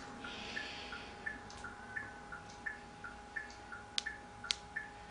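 A car's indicator ticking steadily at about three ticks a second, alternating high and low in a tick-tock, over a faint steady electrical hum. Two sharper, louder clicks come about four and four and a half seconds in.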